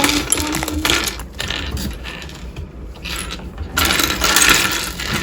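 Small plastic Lego pieces clattering in their bags, with plastic rustling, in uneven bursts as a freshly opened Lego set is unpacked.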